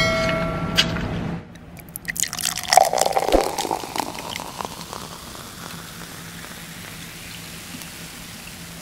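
A brief electronic chime with clicks, then ice cubes clinking in a glass as liquid is poured over them. A faint steady trickle follows.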